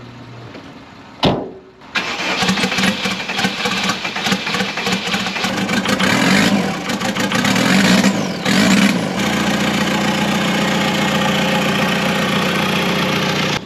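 VW Vanagon Westfalia's turbo diesel engine, with a straight pipe off the turbo, starting cold just after its fuel system has been bled. After a sharp click it catches about two seconds in and runs unevenly at raised speed, then settles into a steady idle about nine seconds in.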